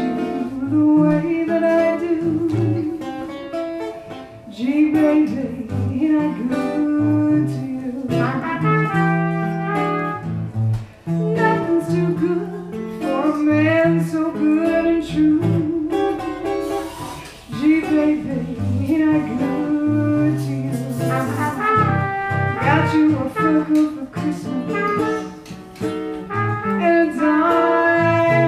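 Live jazz trio playing a blues-tinged standard: a woman singing, with hollow-body archtop guitar and trumpet.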